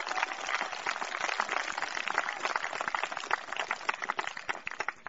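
A group of people applauding, the clapping thinning to a few last separate claps near the end.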